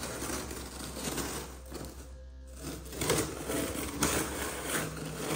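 A small blade slitting the packing tape along the seam of a large cardboard box, a rough scraping tear in uneven spurts, loudest a little past the middle.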